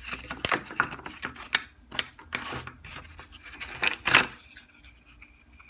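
Small hardboard pieces being handled, with irregular clicks and light scrapes and one longer scrape about four seconds in.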